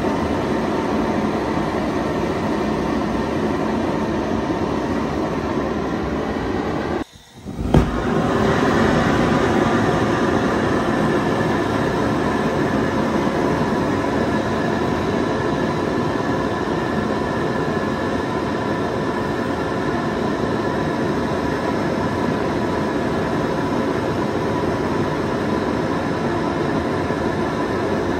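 Homemade jet engine (butane-canister combustion chamber on a tailpipe, fed compressed air and butane) running with a steady rushing burn. About seven seconds in it cuts out for half a second, then comes back with a sharp pop and runs on slightly louder.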